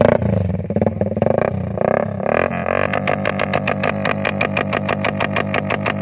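Motorcycle engine starting through an open exhaust pipe fitted with a screen-type silencer insert. It is blipped about three times in the first two seconds, then settles into a steady, fast idle of evenly spaced exhaust pops.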